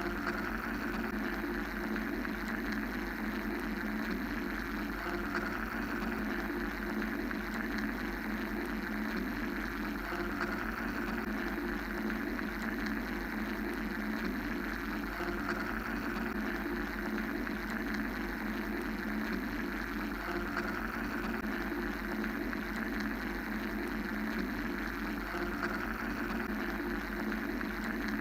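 Steady mechanical drone of white-noise-like hum with a low rumble, running without a break; its upper hiss swells gently about every five seconds.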